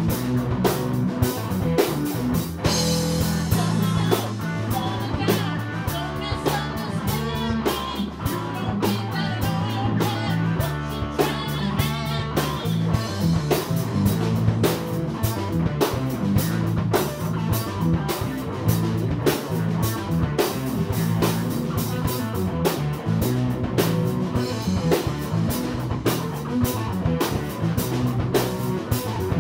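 Live rock band playing: electric guitar, bass guitar and drum kit, with a steady beat.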